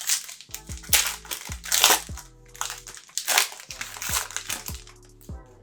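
Foil trading-card pack wrapper crinkling as it is handled and torn open, in several loud bursts, the loudest about two seconds in. Background music with a steady beat runs underneath.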